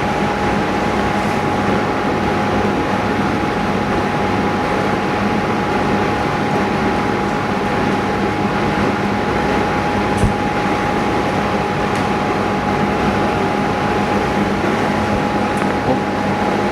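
Steady machine running, a constant whine over an even hum and hiss, with one faint tick about ten seconds in.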